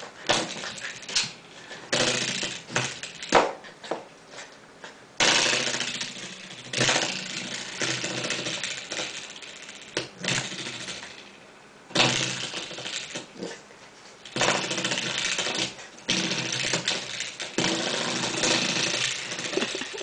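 Spring door stopper twanging and buzzing again and again as a puppy paws and bites at it. Each flick starts suddenly and dies away over a second or two.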